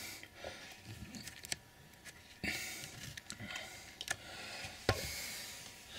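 Faint handling noise: scattered light clicks and taps with soft rustling, and one sharper click near the end.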